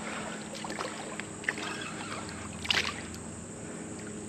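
River water splashing and sloshing around a wading person's legs and a landing net as a hooked carp is brought in close, with a sharper splash about two and a half seconds in. A faint steady low hum runs underneath.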